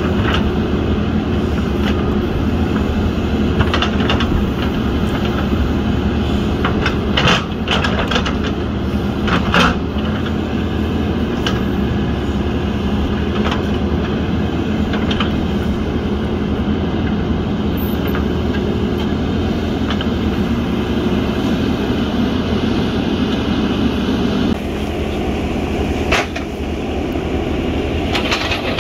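JCB backhoe loader's diesel engine running steadily under load while the backhoe digs, with scattered sharp knocks and scrapes of the steel bucket against soil and stones. The engine note drops a little near the end.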